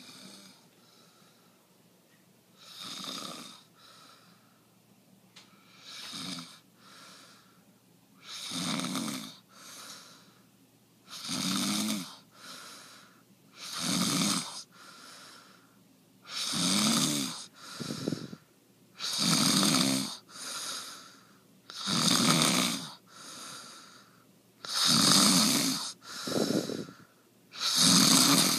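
A sleeping person snoring heavily: on each breath a loud snore followed by a shorter, quieter one, repeating about every three seconds and growing louder.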